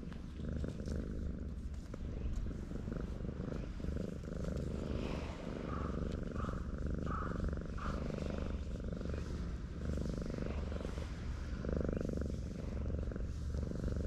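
Cat purring while being stroked: a steady, low, rhythmic rumble close to the microphone.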